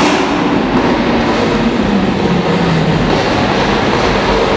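Performance SUV's V8 engine running loud at fairly steady revs as it drives past, its exhaust note mixed with a continuous rushing noise and echoing off the concrete of a parking garage.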